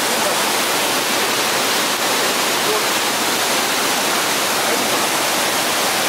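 Waterfall rushing: a loud, steady, even roar of falling water.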